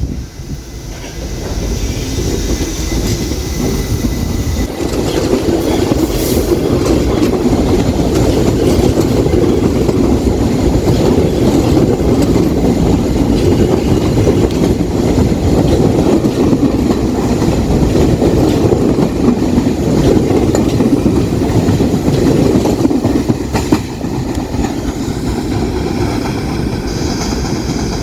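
New York City subway train running along the track, the rumble building over the first few seconds and holding steady, then easing a little near the end as a faint high whine comes in.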